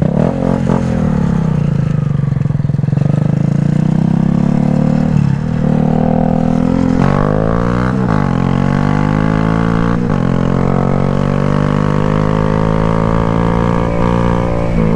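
Motorcycle engine on the road, slowing at first, then picking up speed through several gear changes in quick succession before settling at a steady cruise.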